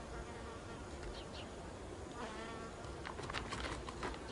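Faint buzzing of flying insects over a quiet outdoor background, with one buzz passing close about two seconds in and a few light ticks a little after three seconds.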